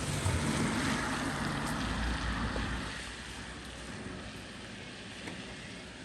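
A vehicle passing on a rain-wet road: a hiss of tyres on water with a low rumble, swelling over the first second and fading after about three seconds.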